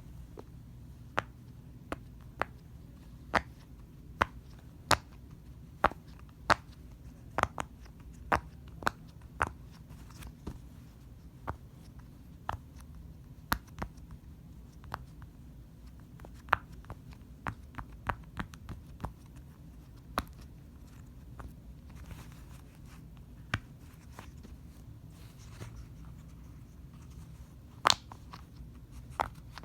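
Sharp, separate clicks at an irregular pace, roughly one a second with some coming in quick pairs and clusters, from fidget toys being clicked and handled.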